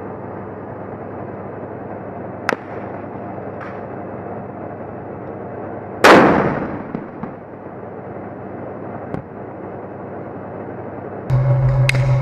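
Combat sound from a tank-mounted camera: a steady muffled noise bed with a few sharp, distant gunshot cracks, and about six seconds in one heavy cannon blast that rumbles away over a second or so. Near the end the sound jumps to a louder steady low drone of a tank's diesel engine running close by.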